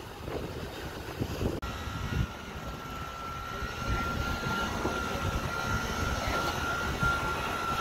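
Mobile truck crane's engine running under load with a steady high whine held on one pitch, as it hoists a tower crane cab. The whine and rumble start abruptly about a second and a half in, after rumbling machinery noise.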